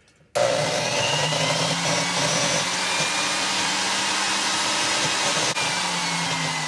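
Electric valve seat grinder running, its freshly dressed stone grinding the intake valve seat of a cast-iron Caterpillar Sixty cylinder head and cutting fast. It starts suddenly just after the start with a steady whine, its pitch dropping a little near the end.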